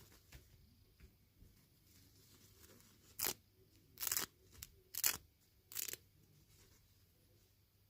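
Toy packaging being ripped open in five short tears about three to six seconds in, with faint handling clicks before them.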